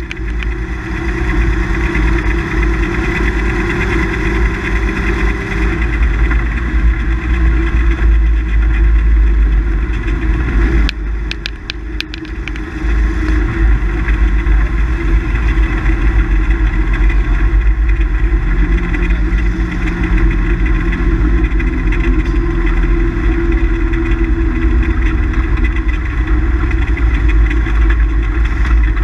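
Rally car engine running hard under load, heard inside the cabin over steady tyre and road noise. About eleven seconds in the engine drops off for a couple of seconds, with a few sharp clicks, then picks up again.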